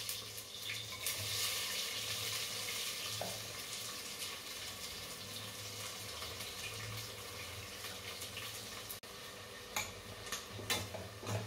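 Onion, garlic, tomato and green chillies frying in mustard oil in a pressure cooker: a steady sizzle as they are stirred, with a few clinks of the spoon against the pot near the end.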